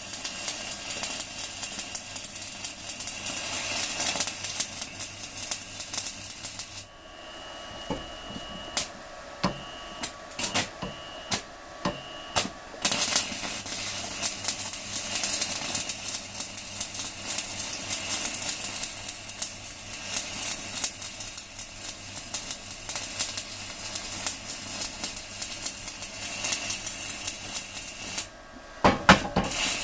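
Stick-welding arc from a 4 mm UONI electrode at 160 A on a small inverter welder, crackling and sizzling steadily. About seven seconds in the arc drops away for several seconds with only a few short crackles, then burns steadily again until it breaks off briefly near the end.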